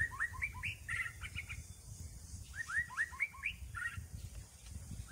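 A songbird singing a repeated phrase of quick rising chirps, twice, about two and a half seconds apart, over a low rumbling background noise.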